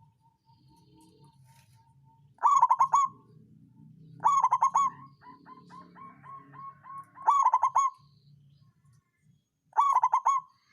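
Local zebra dove (perkutut) cooing. It gives four loud, rapidly trilled coos spaced a few seconds apart, with soft, evenly repeated short notes at the same pitch between them.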